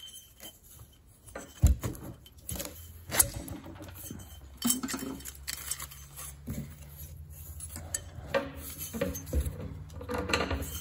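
Scattered light metal clinks and knocks as the aluminium cylinder head of a Honda ATC200E engine is rocked loose and lifted off the cylinder studs by hand. One sharper knock comes about a second and a half in, and a quicker run of clinks near the end.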